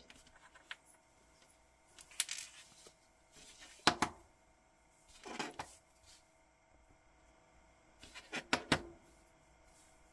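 Light taps and clicks of a steel watch and rubber strap being handled and set down on a tabletop: a few separate small knocks a second or two apart, with a short cluster near the end.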